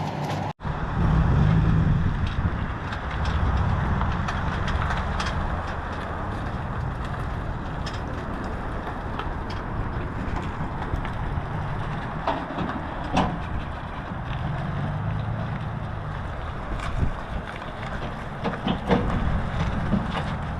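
Vehicle driving on the road: a steady rumble of engine and road noise with wind, starting after a brief cut about half a second in.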